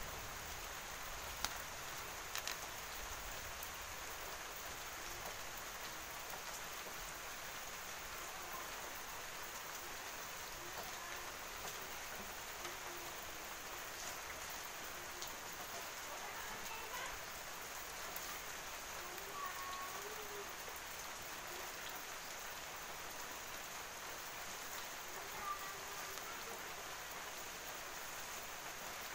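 Rain falling steadily, an even hiss, with a couple of faint clicks about two seconds in.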